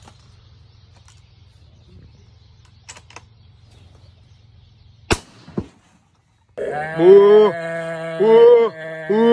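A single rifle shot about five seconds in, fired at close range into a steer's head as a homekill slaughter shot, with a second sharp knock half a second later. After a brief gap a loud drawn-out pitched sound sets in, a steady tone with three rising-and-falling calls over it.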